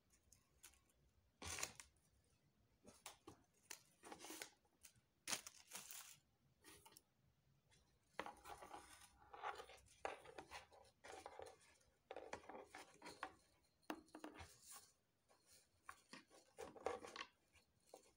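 Hand-sewing an alice band onto a stiff moulded mesh fascinator base: irregular scratchy rustles and scrapes as the base and band are handled and thread is drawn through, with a longer stretch of rustling in the middle.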